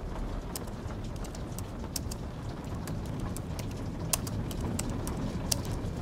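Typing on a low-profile white keyboard: irregular, quick key clicks over the steady hiss of rain.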